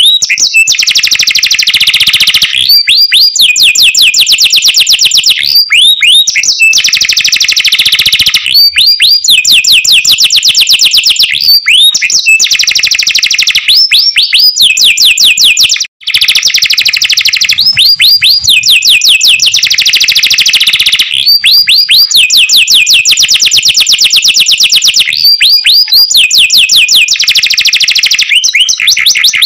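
Domestic canary singing loudly and without pause: long rolling trills of fast repeated notes, broken by short swooping phrases. The song drops out for an instant about halfway through.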